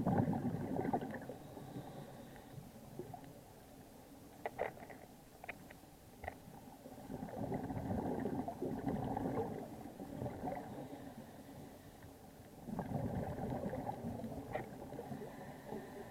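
Scuba diver's exhaled bubbles from a regulator, heard underwater as a low gurgling rumble. Three bursts come several seconds apart in the rhythm of breathing, with a few short clicks between them.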